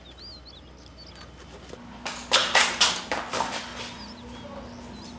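Faint bird chirps, then about two seconds in a quick run of five or so sharp knocks, the loudest sounds here, over a steady low hum.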